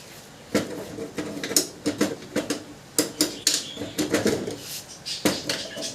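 Irregular metallic clinks, taps and knocks of gas-stove parts being handled and worked on, starting about half a second in.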